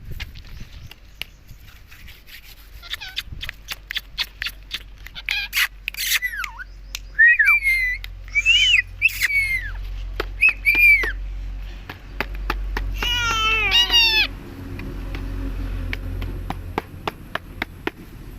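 Indian ringneck parakeet vocalising: short rising-and-falling whistled calls, then a longer layered call with a falling pitch about 13 seconds in, over many sharp clicks.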